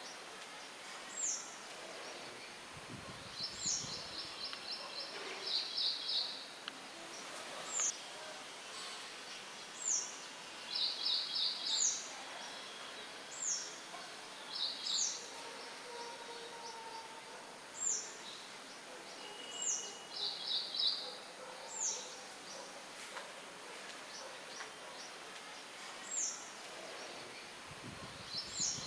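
Songbirds singing: short, high, down-slurred notes repeated every second or two, with a few quick trills between them. A steady hiss of light wind in the leaves runs underneath.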